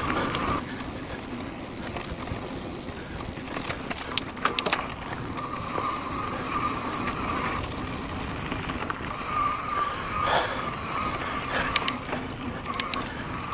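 Volition Max electric bike ridden over a rough dirt and grass trail: steady tyre and trail rumble with sharp rattling knocks over bumps, and a thin high whine from the electric motor that comes and goes.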